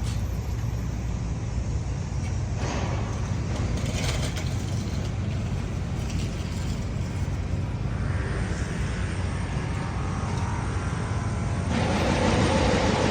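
City street traffic: a steady low rumble of passing vehicles, growing louder near the end.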